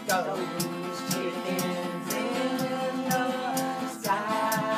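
Two acoustic guitars strumming a steady rhythm while a woman sings long, drawn-out wordless notes.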